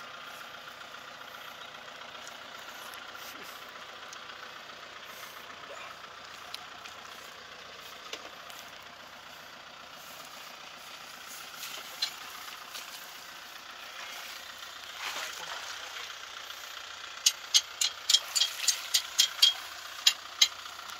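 Kubota M6040SU tractor's diesel engine running steadily at a distance. Near the end comes a quick run of about a dozen sharp, loud clicks.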